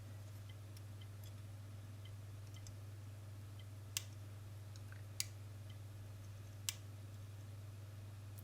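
Three small, sharp clicks about a second and a half apart, from multimeter probe tips touching the smart plug's circuit board while the capacitor's leftover voltage is checked. A low steady hum lies underneath.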